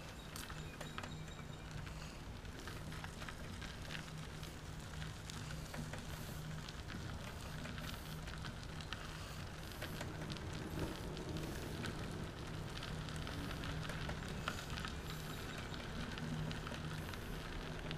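Trike tyres rolling over gravel: a steady crackling crunch with many small clicks, over a low steady hum.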